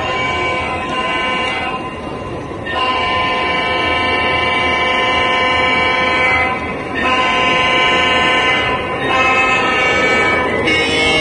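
Lionel O scale Santa Fe Alco diesel model locomotive's onboard sound system sounding its multi-note horn in a series of blasts, one long one about three seconds in, over the steady rumble of the train running on the track.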